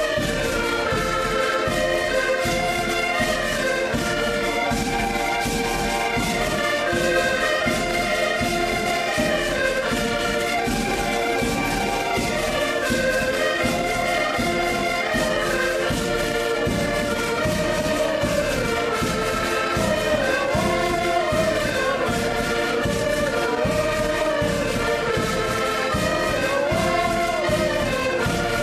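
An ensemble of diatonic button accordions (Portuguese concertinas) playing a folk tune together, melody over a steady beat in the bass.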